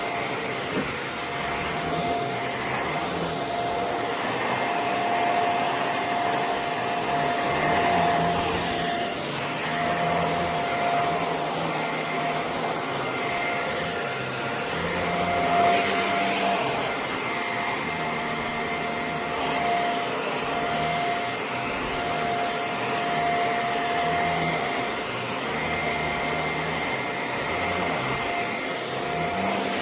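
CFBF handheld mattress vacuum cleaner running continuously on sofa upholstery: a steady motor whine that wavers in strength as the nozzle is moved over the fabric.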